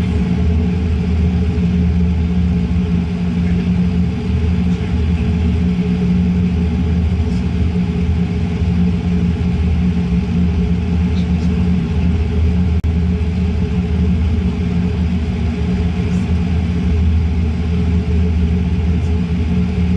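Steady low rumble of cabin noise inside a Boeing 787-9 airliner: engine and airflow noise heard from the economy cabin.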